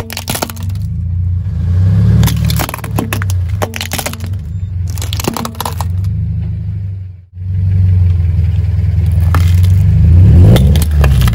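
A car tyre rolling over small plastic toy cars and plastic spring toys, crushing them in a run of sharp cracks and snaps over the low rumble of the car. After a short break about seven seconds in, it rolls onto donut-shaped tin boxes and crumples them with more cracking.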